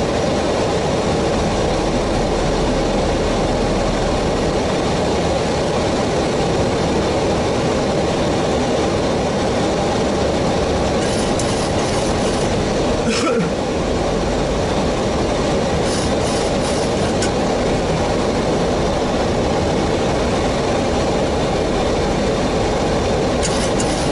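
Steady, loud airliner cockpit noise, a mix of airflow and engine rumble, broken by a few brief clicking sounds.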